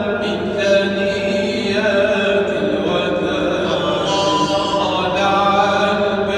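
A man's voice in slow, melodic Islamic chanted recitation, holding long gliding notes, heard in a mosque during the Laylat al-Qadr night prayers.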